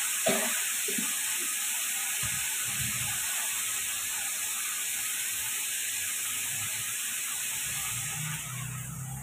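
Diced potatoes and tomatoes sizzling in oil in a frying pan: a steady hiss that eases slightly near the end.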